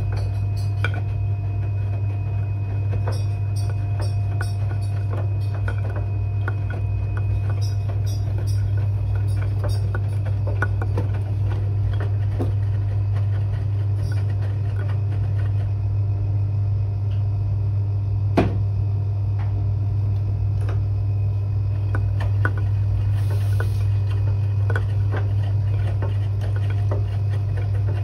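Washing machine early in a quick 30 °C wash cycle: a steady low hum with scattered light clicks and taps, and one sharper knock about eighteen seconds in.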